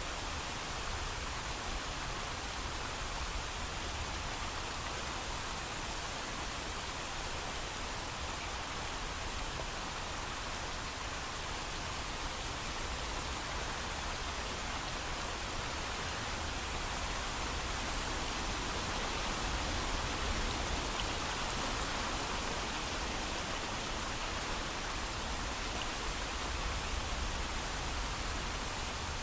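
Steady heavy rain falling, an even hiss of many drops with a low rumble beneath and no thunder.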